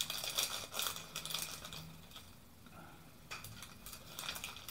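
Small clear plastic bag of wires crinkling and rustling as it is handled. The rustles come in short irregular spells, most of them in the first second and a half, with a few more later on.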